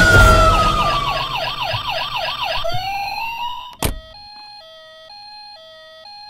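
Police siren: a long falling wail turns into a fast yelp warble about a second in, then a single sharp knock near the four-second mark. After the knock a quieter hi-lo two-tone siren switches tone about every half second.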